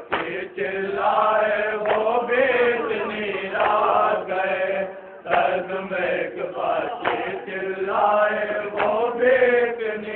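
Male voices chanting a noha, a Shia lament for Karbala, through microphones and loudspeakers, in two similar sung phrases of about five seconds each. A steady low hum runs underneath.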